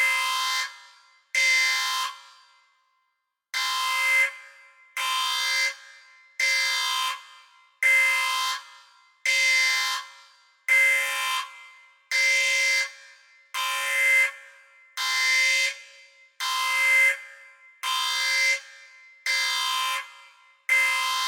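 Spaceship alarm sound effect: a synthetic alarm tone sounding in short blasts of under a second, repeating about every second and a half, with one slightly longer pause about two seconds in.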